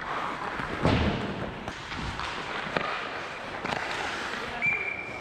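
Ice hockey skates scraping across rink ice, with several sharp knocks of sticks and puck, the loudest about a second in. Near the end a referee's whistle starts, one steady high note.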